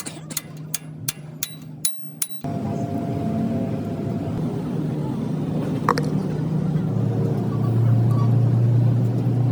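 A run of sharp ticks, about three a second, then a vehicle engine running steadily with a low hum that grows louder about seven seconds in.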